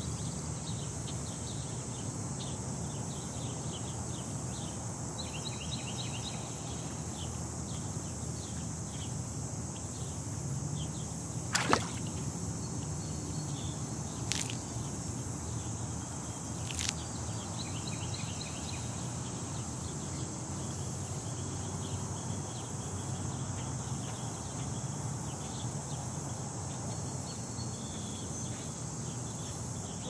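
Steady wetland ambience: a high, even insect chorus with faint chirps, broken a little before halfway by three brief sharp clicks a few seconds apart, the first the loudest.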